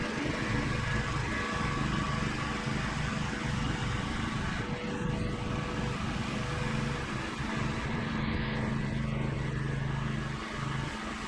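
A 2800 psi gas pressure washer running steadily: an engine drone with the hiss of high-pressure water spraying.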